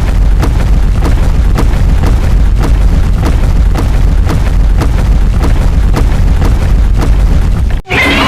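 Kaiju sound effect: a loud, distorted low rumble with sharp crackles about twice a second, cutting off abruptly near the end.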